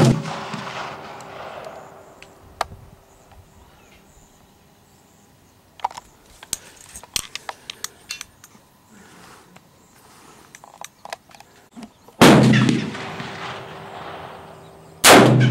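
AR-15 with a DSArms ZM4 5.56 upper firing three single shots, one at the start and two near the end about three seconds apart, each ringing on for about a second. Faint clicks from handling the rifle come in between.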